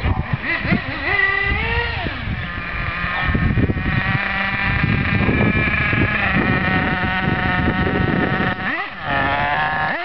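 Small nitro engine of a remote-control buggy buzzing at high revs. The pitch climbs about a second in, holds steady through the middle, then dips briefly and rises again near the end.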